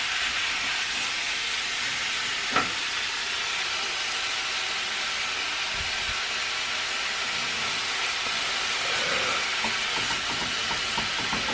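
Ground beef frying with garlic and onion in a little lard in a pan, a steady sizzle. A single sharp clink about two and a half seconds in.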